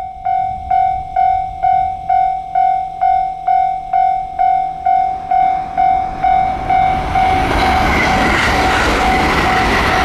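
Japanese level crossing warning bell ringing, a pitched electronic ding at about two strikes a second. About seven seconds in, a limited express electric train passes close by and its wheel and track noise swells up over the bell.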